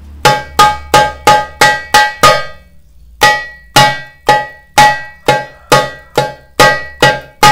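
Darbuka struck near the rim with single left-hand ring-finger strokes, the heel of the hand resting on the drum body: sharp, ringing strikes at about two to three a second, a run of seven, a short pause, then about ten more.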